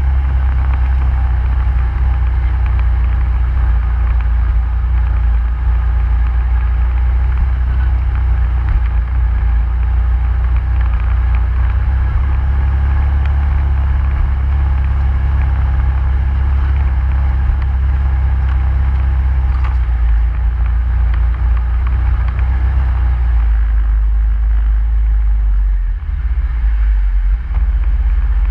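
ATV engine running at a steady speed, a constant low drone that dips briefly near the end.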